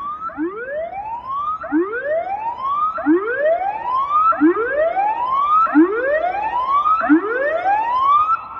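Electronic tsunami warning siren sounding a test, very close up. It is a loud whooping tone that rises steeply in pitch and repeats about every 1.3 seconds, with fainter overlapping rises from the siren's other speakers.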